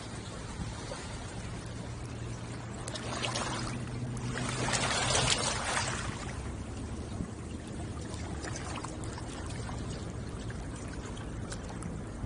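Water washing against the shore: a surge of water swells about three seconds in and falls away after about six seconds, over a steady low hum.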